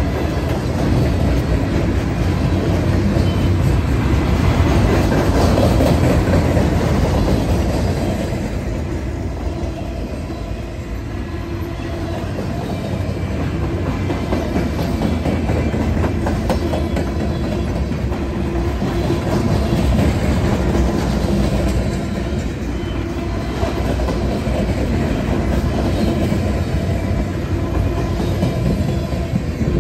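Freight train flatcars rolling past close by: a steady rumble of steel wheels on rail with rapid clickety-clack over the rail joints. A faint steady whine comes and goes.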